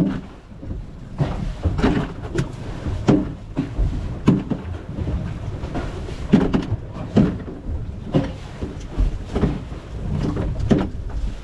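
Irregular knocks and clunks aboard a small fishing boat at sea, a few each second, over a low rumble of wind on the microphone.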